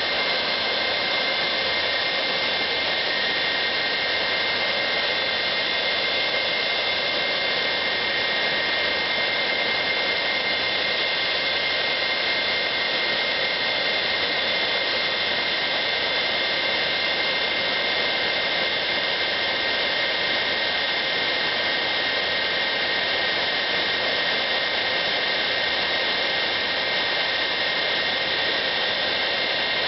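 Jet engine running steadily, a constant rushing noise with high whining tones that hold their pitch throughout.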